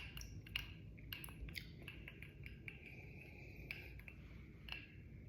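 Faint room tone in a small room, with a few scattered soft clicks and taps.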